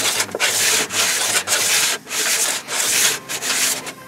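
Sandpaper wrapped around a template tool, rubbed back and forth by hand over hardened body filler on a car's rocker panel. The strokes come steadily, about two a second, shaping the filler to the body line.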